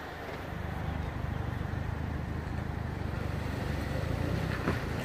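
Low, steady engine rumble that slowly grows louder, with a faint click near the end.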